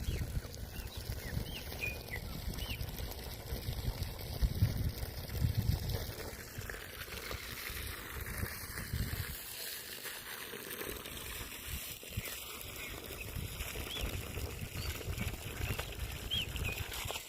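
A small songbird giving short, curved chirps a few times, near the start and again near the end, over a low, uneven rumbling noise.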